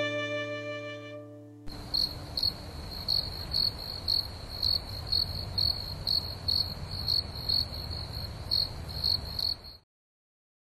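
A cricket chirping steadily, a high chirp repeated about three times a second over a low background rumble. It follows the last notes of a music track dying away and cuts off suddenly near the end.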